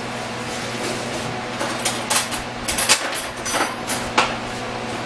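Metal kitchenware clinking and knocking: a quick run of sharp clinks from about a second and a half in to about four seconds in, over a steady low hum.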